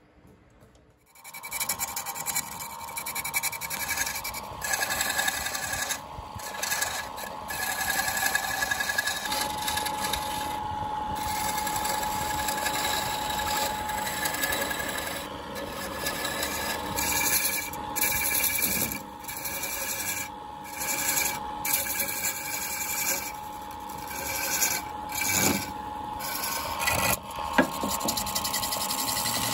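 A wood lathe spinning a bamboo section while a hand-held turning tool cuts into it: a continuous scraping cutting noise over the lathe's steady tone, starting about a second in and dipping briefly several times as the tool eases off.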